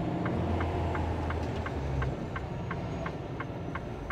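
Turn-signal indicator ticking steadily, about three ticks a second, inside a truck cab over the low, steady drone of the truck's engine.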